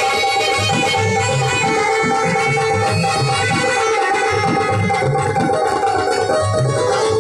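Instrumental passage of devotional music: a dholak drum played by hand in a steady rhythm under a melody on an electronic keyboard.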